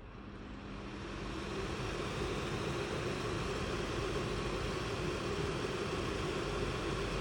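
Air purifier fan switched on, its rushing airflow building up over about a second and a half and then running steadily.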